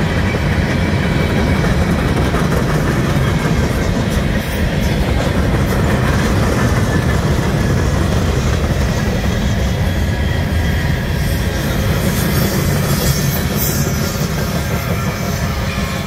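Freight train cars rolling past, a loud, steady rumble of steel wheels on rail.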